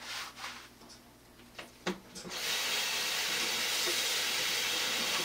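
A kitchen faucet is turned on about two seconds in, with a click, and water runs steadily into a stainless-steel sink to rinse shampoo lather from hair.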